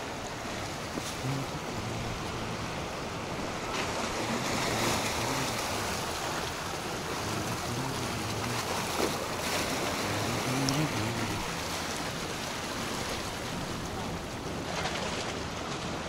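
Small ocean waves washing and breaking among the boulders of a rock breakwater, a steady wash that swells slightly a few times, with some wind buffeting the action camera's microphone.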